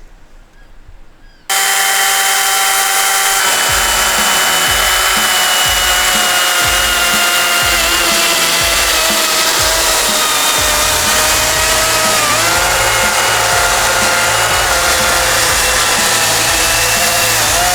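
Chainsaw running at full throttle cutting into a log, starting suddenly about a second and a half in, its pitch dipping briefly a couple of times under load. Background music plays along with it.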